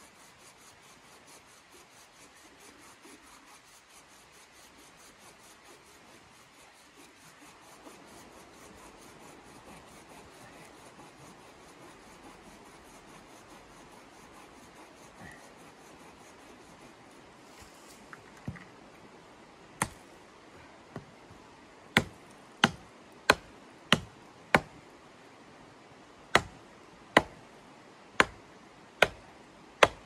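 Faint rasping of a blade working a wooden pole. From about two-thirds of the way in come sharp hatchet strikes on the wood, about a dozen, roughly one a second.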